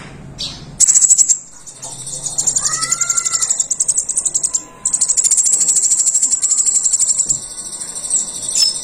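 Pentis raja songbird singing a very high, rapid, ticking trill in three long bursts, the second and third lasting a couple of seconds each.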